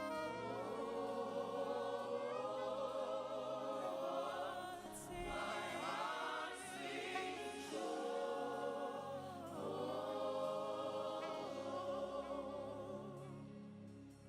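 A worship choir and congregation singing slow, sustained wordless or ad-lib lines over a soft instrumental accompaniment, gospel-style.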